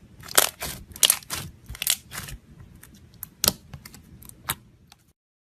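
Slime being squeezed and poked, giving a run of sharp clicks and pops, with one loud pop about three and a half seconds in; the sound cuts off about five seconds in.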